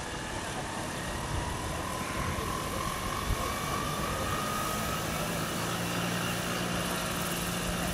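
Electric drive of a large Vario CH-47 Chinook scale model tandem-rotor helicopter whining, the pitch rising slowly as the rotors spool up on the ground. A steady low hum joins in about halfway through.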